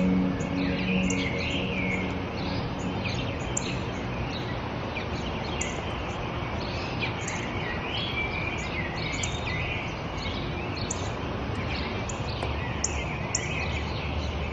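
Small birds chirping and twittering in short, repeated calls over a steady outdoor background hiss.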